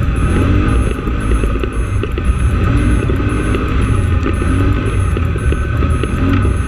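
Polaris Scrambler 850 ATV's parallel-twin engine running under load while riding, heard up close from a camera mounted on the machine, as a loud steady rumble.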